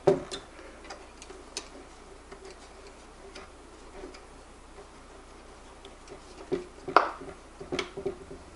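Handling noise from a Mamiya C33 twin-lens reflex camera: scattered small clicks and light knocks of its metal body and fittings, the loudest about seven seconds in, with a quick run of small clicks near the end.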